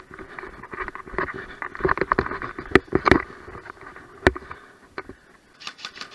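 Footsteps and gear rustling against the microphone as an airsoft player moves in, with three sharp cracks about three and four seconds in and a quick run of ticks near the end.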